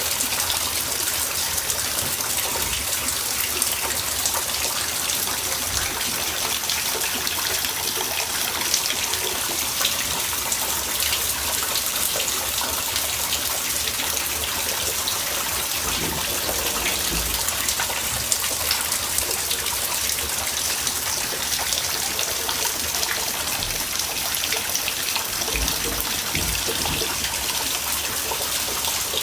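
Water running steadily, an even, unbroken rush.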